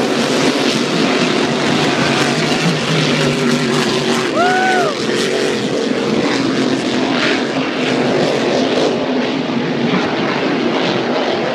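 Unlimited hydroplane race boats running flat out across the water, their engines a loud, steady drone mixed with rushing spray noise. A short rising-and-falling whistle-like tone cuts through about four and a half seconds in.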